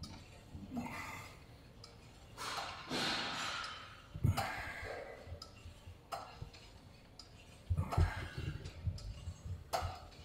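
A lifter pressing on a seated shoulder-press machine: forceful breaths and exhales, with several sharp metal knocks and low thumps from the machine as the weight moves.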